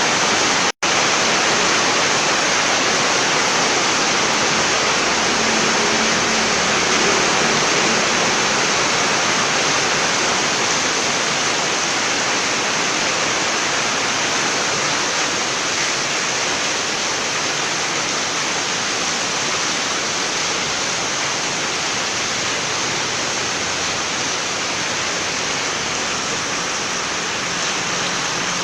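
Heavy rain pouring down steadily, an even hiss that cuts out for an instant a little under a second in.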